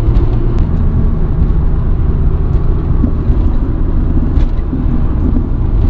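Mitsubishi Lancer Evolution 6.5 Tommi Mäkinen Edition's turbocharged 2.0-litre four-cylinder running as the car drives along, heard from inside the cabin as a steady low rumble of engine and road noise.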